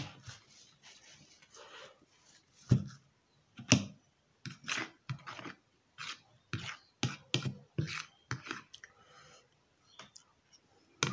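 Chewing and lip-smacking while eating a corn tamale: a run of irregular short smacks and clicks.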